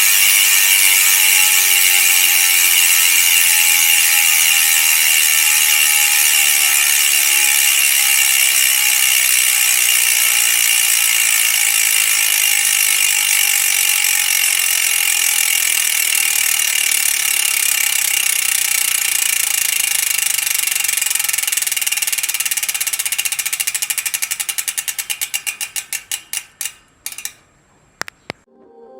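Mountain bike rear hub freewheeling: the pawl ratchet gives a loud, fast buzz whose pitch falls as the spinning wheel slows. About 23 seconds in it breaks into separate clicks that slow down and stop near the end.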